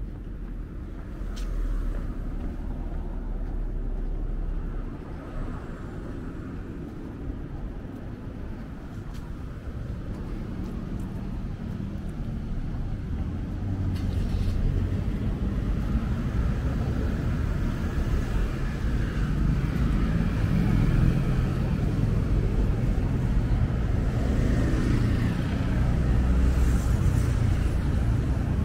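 Street ambience with road traffic, a low rumble that grows louder about halfway through as vehicles pass.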